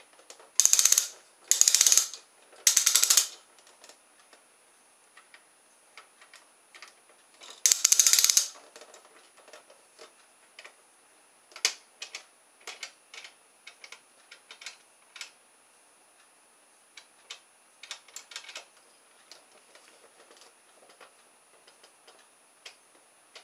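Plastic clockwork kit's mechanism ratcheting in four short bursts of very rapid clicking, three close together near the start and one about eight seconds in, followed by scattered light clicks and taps of plastic gears and parts being handled.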